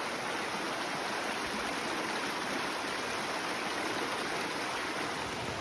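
Mountain stream flowing over rocks, a steady rushing of running water.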